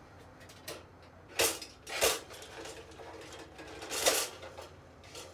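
A few short, loud clattering bangs and rattles of hard objects being handled, the loudest about a second and a half in, just after two seconds and around four seconds, with fainter clicks between.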